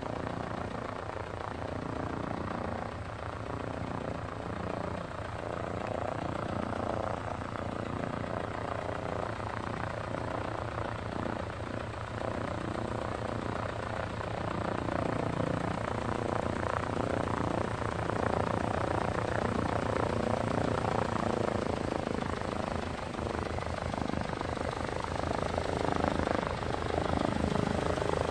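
Single-engine floatplane's propeller engine running steadily as the plane moves across the water on its floats, growing louder as it comes closer.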